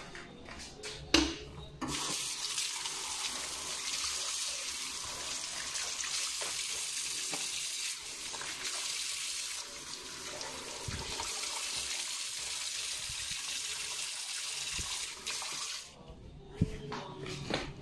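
Kitchen faucet running into the sink, the stream splashing over a hand held under it. The water starts about two seconds in, just after a knock, and stops shortly before the end.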